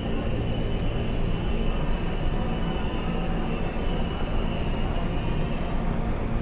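Steady hum inside a KRL Commuter Line electric train car standing at a station with its doors open, its onboard equipment running. A faint high whine runs along with it and stops near the end.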